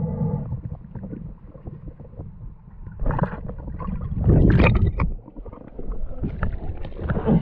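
Low water rumble and bubbling around a camera held underwater, with two louder bubbly rushes of water about three and four and a half seconds in.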